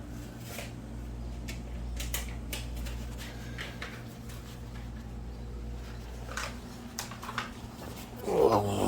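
Small clicks, taps and rustles of hands working exhaust repair wrap and putty onto a muffler, over a steady low hum. Near the end comes a short, louder sound with a falling pitch.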